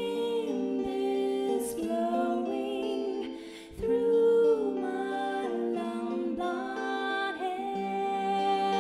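A woman singing slow, drawn-out notes of a ballad melody with a live band accompanying her; a new phrase comes in strongly about four seconds in.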